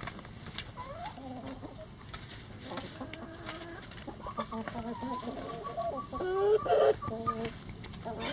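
Backyard hens clucking and making drawn-out calls while feeding. The calls thicken and grow louder about halfway through, with scattered sharp ticks among them.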